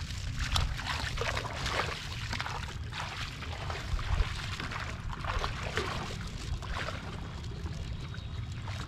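A person wading through shallow muddy water: irregular splashing and sloshing with each step.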